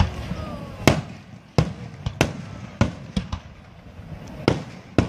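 Aerial fireworks bursting overhead: a quick, uneven series of sharp bangs, about eight in five seconds, each trailing off in a low rumble.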